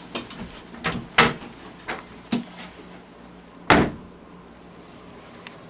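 A wooden door handled and footsteps moving through the house: about half a dozen separate knocks and thuds, the loudest a little under four seconds in.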